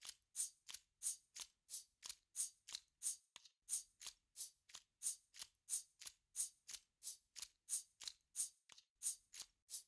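Hand percussion played on found natural objects, a steady rhythm of short, hissy rattling strokes at about three a second, with no melody over it.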